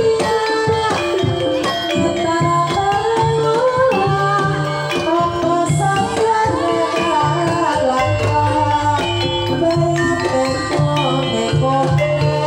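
Banyumasan gamelan music: a bamboo calung struck with mallets and kendang drums keeping the beat, with gongs, under a female sinden's singing in a tayub piece. A deep low stroke comes about eight seconds in.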